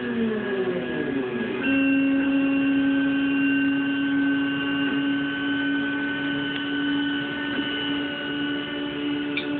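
Stepper motors of a homemade CNC machine whining as it runs a pattern: several tones slide down together for about a second and a half, then settle into one steady tone as the axis travels at a constant feed speed.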